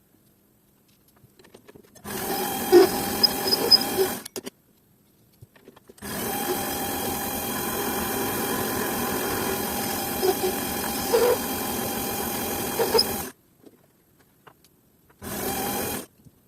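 A small electric power tool running steadily in three spells, the longest about seven seconds. Each spell starts and stops abruptly, with silence between.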